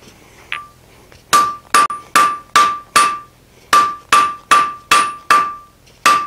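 Hand hammer striking the hot end of an S7 tool-steel bar on an anvil: two runs of five blows, about two and a half a second, with a short pause between and one more blow near the end, each ringing with a clear metallic note. The blows land right at the edge of the bar's end, upsetting it into a shallow depression for an eye punch.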